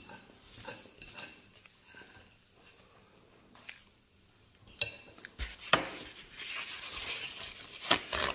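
Metal fork clinking and scraping on a ceramic plate, a few separate clinks in the first half. In the last few seconds, paper towel rustling as a sheet is pulled off the roll and torn.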